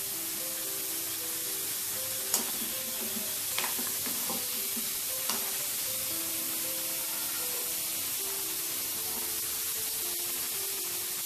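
Breaded chicken popcorn balls deep-frying in hot oil, a steady sizzle. About two and a half, three and a half and five seconds in come sharp clinks of a spoon knocking the pan.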